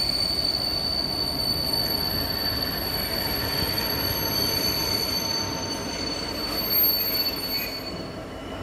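Freight train of hopper wagons hauled by a Class 66 diesel locomotive rolling slowly in over the rails, with a steady high-pitched wheel squeal over a low rumble. The squeal fades near the end.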